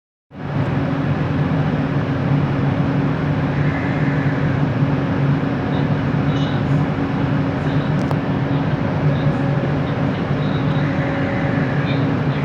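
Bombardier Innovia ART 200 metro car running, heard from inside: a steady rumble with a constant low two-note hum from its linear induction motors, the weird motor noise of this train.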